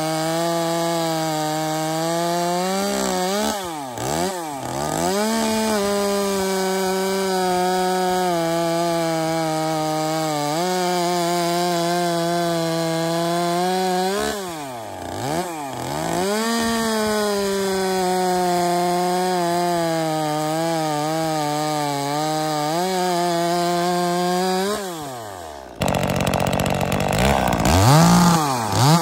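Two-stroke Echo top-handle chainsaw running at full throttle while cutting through a log. Twice the engine eases off, its pitch falling and climbing back. About 26 seconds in the steady cutting gives way abruptly to a rougher engine sound with a quick rev.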